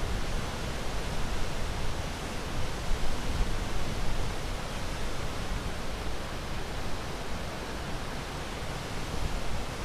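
Ocean waves breaking, a steady rushing wash of surf.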